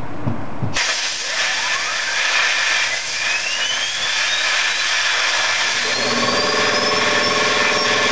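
Compressed air at 100 psi hissing from a blow gun, spinning a Veeder Root variator cone gear like a top on its pointed shaft. The hiss starts suddenly about a second in, and a whine climbs steadily in pitch as the gear speeds up.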